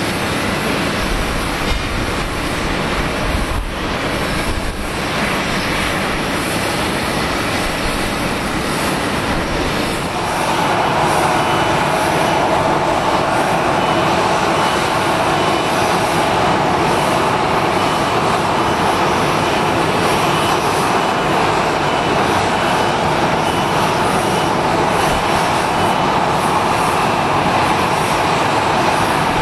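Steady jet aircraft engine noise across an airport apron, growing louder and fuller about ten seconds in.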